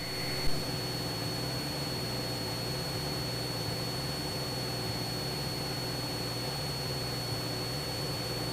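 Steady drone of a Cessna 172's piston engine and propeller in level flight, heard through the cockpit intercom, with a thin steady high whine over it.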